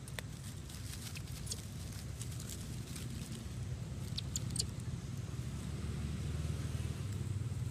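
Steady low engine rumble of a motor vehicle, growing a little louder over the second half. A few faint sharp clicks sound over it, like dry leaves or stems being handled.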